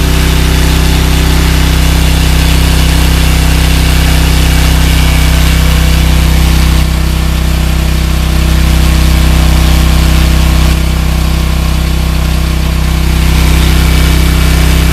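Portable diesel generator running steadily at constant speed just after starting, a low, even engine drone that gets slightly louder and softer a few times as the microphone moves around it.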